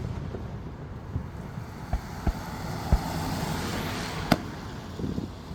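Fireworks going off: a handful of sharp bangs, the loudest about four seconds in, with a rushing hiss swelling between them.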